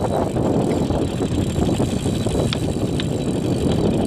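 Spinning reel whirring and clicking while a hooked fish is fought, over a steady rushing noise, with two sharp ticks about two and a half and three seconds in.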